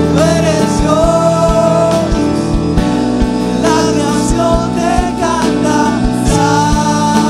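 Live worship band music: a man singing two phrases with long held notes over electric guitars, bass, keyboard and repeated drum hits.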